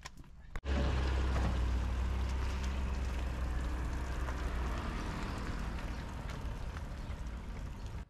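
Car engine running steadily with a low hum as the car tows a small motorboat on its trailer up a launch ramp. It starts suddenly about half a second in and slowly fades.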